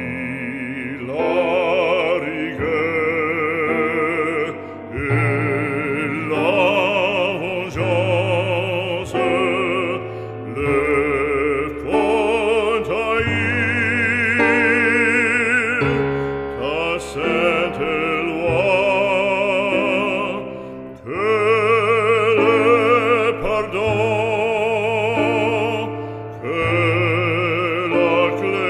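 Background music: a classical operatic solo voice singing with wide vibrato over a low, sustained accompaniment, in phrases a few seconds long.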